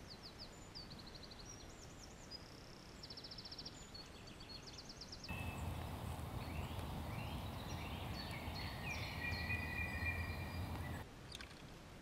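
Small woodland birds singing faintly over a steady hiss: quick high trills and short runs of repeated notes. About five seconds in, the background grows louder with a low hum and other bird calls with falling, sweeping notes, then drops back to the fainter hiss near the end.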